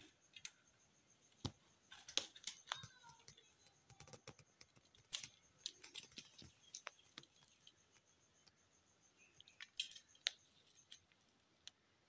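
Indian ringneck parrot making a scatter of sharp, irregular clicks and taps, with a few soft, short chirps about two and a half seconds in.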